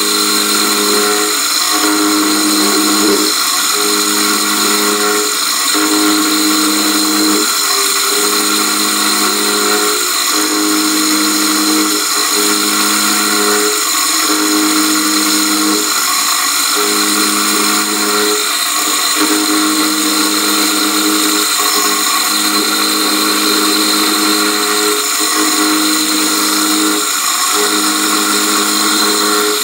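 Benchtop milling machine running, its end mill cutting a relief notch into a C-clamp's frame: a steady high-pitched machining whine with a lower hum that drops out briefly every second or two.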